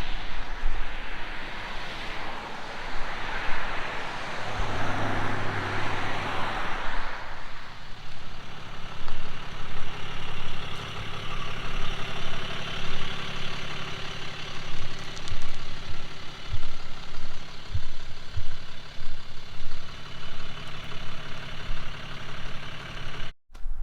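Heavy engine running steadily near idle, with a hiss during the first several seconds.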